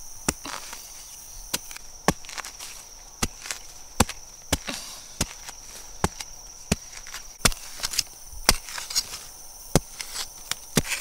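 Machete blade chopping into soil in sharp, irregular strikes, about one a second, as the ground is dug up.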